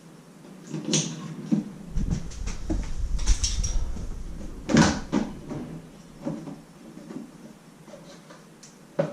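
Clicks and knocks of a motorcycle's fuel filler cap being taken off and its plastic tank cover being handled, with a low rumble for a couple of seconds and one sharp knock near the middle.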